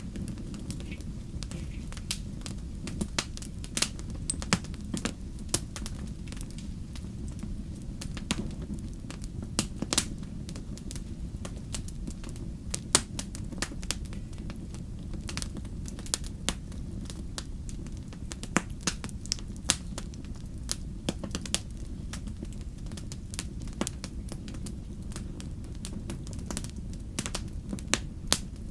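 Wood fire crackling: irregular sharp pops and snaps over a steady low rumble of burning.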